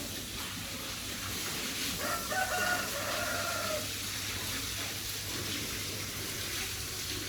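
A rooster crows once, a single long call starting about two seconds in, over a steady background hiss.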